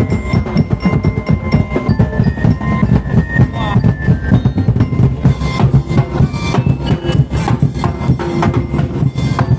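Percussion-heavy music: fast, dense drumming with a few held higher melodic tones over it.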